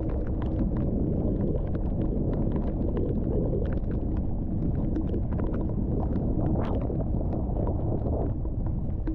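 Heard from inside a car in heavy rain: a steady low rumble of the car rolling slowly on a wet gravel road, with irregular sharp ticks of rain striking the car.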